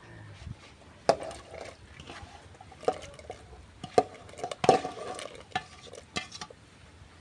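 A utensil stirring in a cooking pot of vegetables, knocking sharply against the pot about six times.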